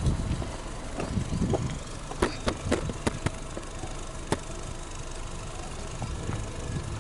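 Subaru Legacy Touring Wagon 2.0i's 2.0-litre flat-four engine idling steadily, heard at the exhaust tailpipe. Several sharp clicks come mostly between about two and three and a half seconds in.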